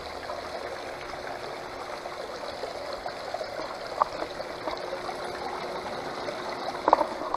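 Water running steadily down a metal gold sluice over a sawtooth riffle mat and pouring off its end into a tub, a continuous trickling rush with a few small ticks.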